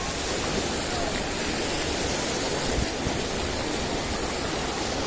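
Sea surf washing onto a sandy beach: a steady, even rush of breaking waves.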